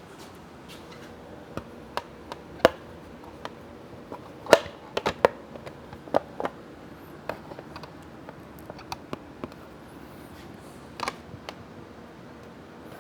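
Irregular clicks and light knocks from hand work on a motorcycle, with parts such as a side cover being handled and pressed into place; the loudest knock comes about four and a half seconds in.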